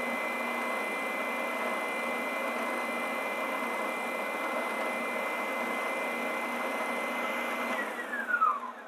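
WEN 6524 oscillating belt and spindle sander running with its sanding belt fitted: a steady motor hum with a high whine while the belt tracking is watched. About eight seconds in the sander is switched off and the whine falls as the motor spins down.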